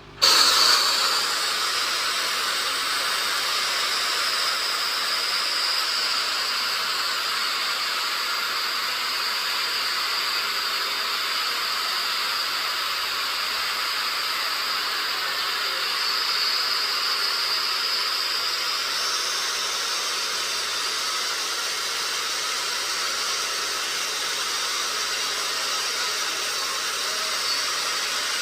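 Crowd cheering and applauding, starting abruptly and then holding at a steady level.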